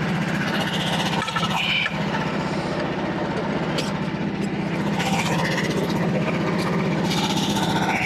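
Frontier OS27 portable band sawmill's small gasoline engine running steadily at an even speed.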